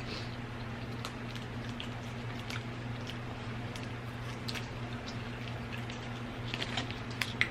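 Close-miked eating: chewing with small wet mouth clicks scattered throughout, over a steady low hum.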